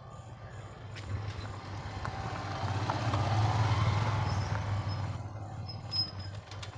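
Motorcycle engine running as the bike rides up and passes close by, growing louder to a peak about three to four seconds in, then fading away.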